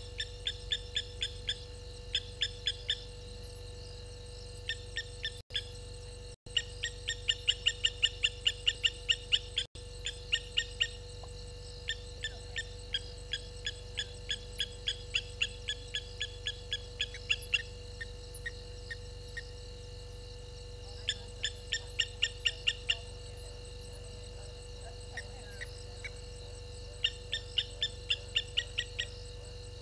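A night-calling animal gives runs of sharp, rapid chirps, about five a second, in bursts of a few seconds with short pauses. A steady low hum and hiss lie beneath, and the sound drops out briefly three times.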